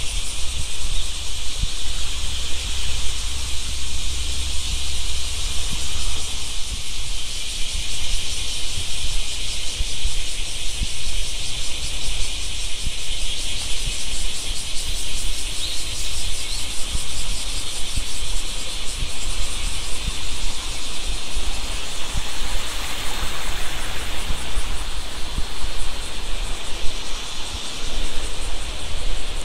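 A dense chorus of summer insects keeps up a steady, high, fluttering buzz. Near the end, the rush of a shallow river running over rocks joins in underneath.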